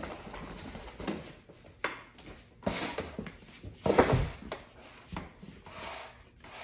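A young dog's paws and claws clattering and scuffing on a raised plastic place board and a concrete floor as it hops on and off the board, in a series of knocks with the loudest about four seconds in.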